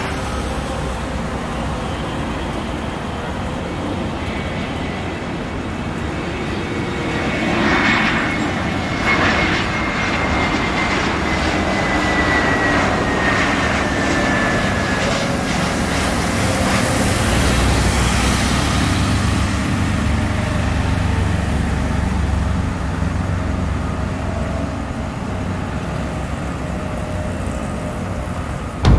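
Jet airliner engines running as the aircraft moves past, a steady rumble with a high whine that slowly falls in pitch over about ten seconds and swells in loudness twice.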